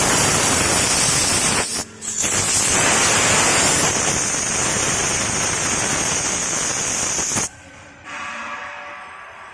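A 1325 wood CNC router running, a loud, steady hissing noise of the spindle and cutting. It breaks off briefly about two seconds in, then cuts off abruptly near the end to a much quieter sound with faint steady tones.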